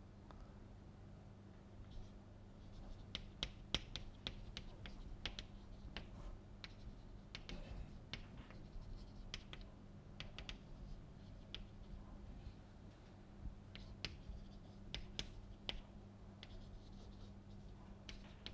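Chalk writing on a chalkboard: a string of faint, short taps and scratches as the chalk forms letters, over a low steady hum.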